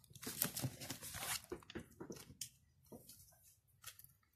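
Plastic shrink wrap crinkling and tearing as small scissors cut it off an album box, with many small clicks, fading to a few scattered faint clicks after about two and a half seconds.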